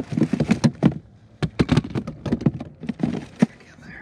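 A rapid, irregular series of clicks, taps and knocks from gear being handled and shifted on a bass boat's deck.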